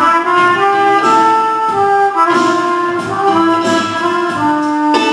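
Trumpet playing a jazzy melody of held notes that step up and down about every half second.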